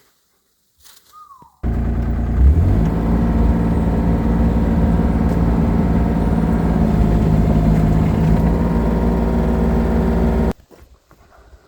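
An engine running steadily at a constant speed, with a brief surge just after it starts. It starts and stops abruptly.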